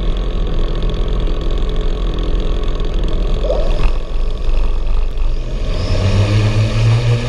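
The four lift rotors of a VTOL fixed-wing drone run, heard from a camera on the airframe over a steady rushing noise. About six seconds in, a low hum grows louder and rises in pitch as the rotors speed up for take-off.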